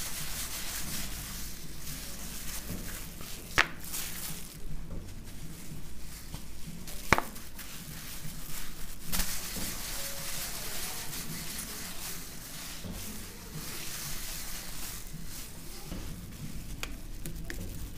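A rolling pin rolling and rubbing over flatbread dough on a marble counter, a steady scraping hiss with two sharp clicks, about three and a half and seven seconds in.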